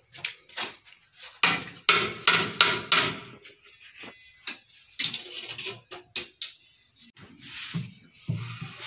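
A ladle knocking and scraping against a cooking pot while chana daal is stirred and scooped: a run of sharp clatters, busiest early on.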